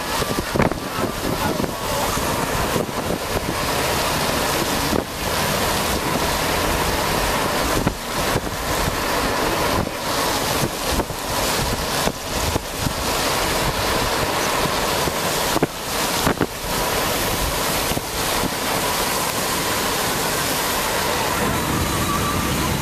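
Wind buffeting the microphone of a phone held out of a moving car's side window: a steady loud rush, broken by frequent brief dips and gusts.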